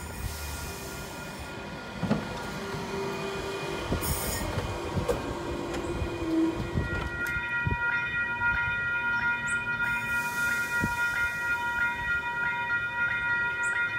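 NSW TrainLink H-set (Oscar) electric train running into the platform, with wheel knocks and rumble. About halfway a steady high-pitched squeal of several tones sets in and holds as it slows to a stop.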